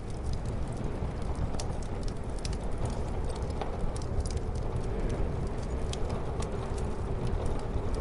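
Wood fire crackling with frequent irregular sharp pops, over a steady low rumble of muffled storm wind.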